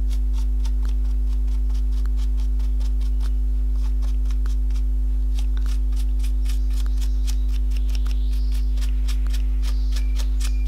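A stiff paintbrush dabbing and scraping over a wrinkled hardened-fabric plaque, making quick, irregular light ticks, over a steady low electrical hum.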